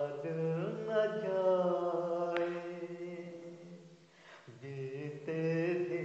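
A man singing solo, holding long notes with slides between them. The phrase fades about four seconds in and a new held phrase starts about half a second later.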